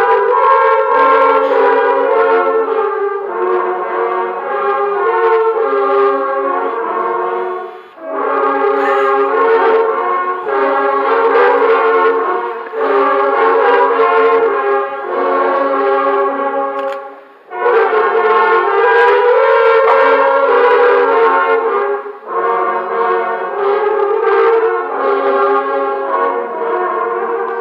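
An ensemble of garden-hose horns, lengths of hose blown with a buzzing of the lips like brass instruments, playing a tune in several parts. The music pauses briefly about 8 seconds in and again about 17 seconds in.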